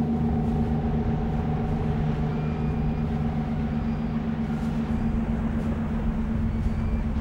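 A vehicle engine running steadily with a low, even hum. Faint short high chirps sound above it now and then.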